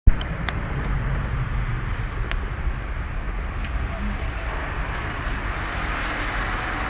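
Steady low rumble and hiss of outdoor street noise, with a few faint clicks.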